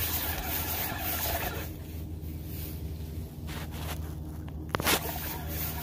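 Spinning reel being cranked, its handle and rotor whirring as line is wound in, over a steady low hum. A sharp knock about five seconds in.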